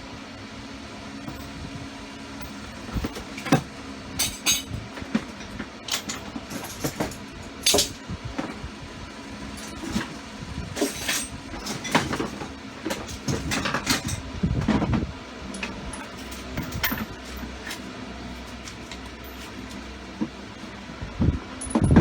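Hand tools and small metal parts clinking and knocking at irregular intervals as a ratchet and socket set is handled and the cylinder head nuts are fitted. A steady low hum runs underneath.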